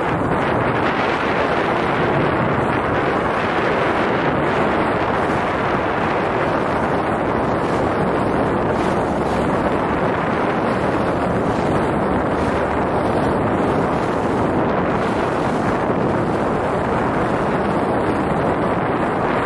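Steady wind noise buffeting the microphone aboard a moving sightseeing boat, mixed with the boat's running noise and the sea, unchanging throughout.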